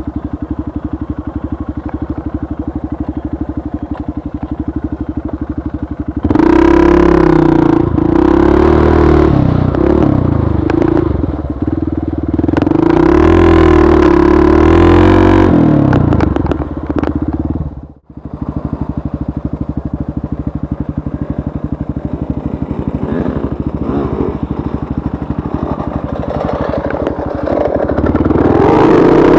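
Trail motorcycle engine idling with a steady pulse, then revving louder with rising and falling pitch for about nine seconds before settling back. It cuts out for an instant about two-thirds through, runs on steadily, and revs up again near the end.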